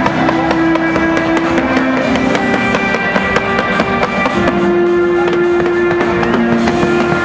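Fireworks display crackling and popping with many sharp cracks throughout, over loud music with long held notes.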